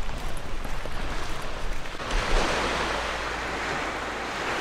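Small waves washing onto a sandy beach: a soft rush of surf that swells about halfway through, over a low rumble of wind on the microphone.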